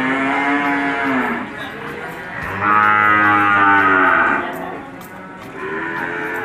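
Cattle mooing: three long moos. The first is already going at the start and stops after about a second and a half, the loudest comes in the middle, and a third begins near the end.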